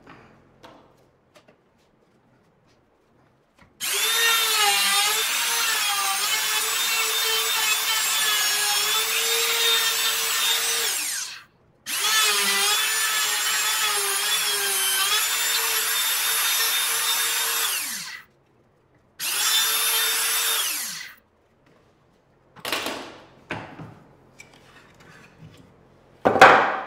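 Compact router with a flush-trim bit cutting a hinge mortise in a hardwood leg through a routing template. It runs in three passes, its pitch dipping and wavering as the bit takes load, and it winds down with a falling pitch after the second pass. A few light wooden knocks follow, with one loud knock near the end.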